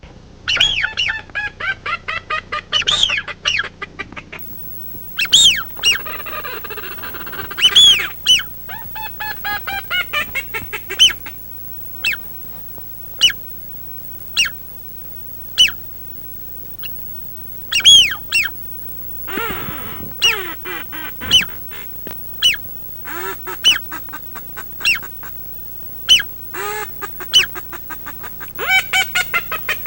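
Ducks quacking in loud, rapid runs of short nasal calls, some runs falling in pitch, repeated throughout.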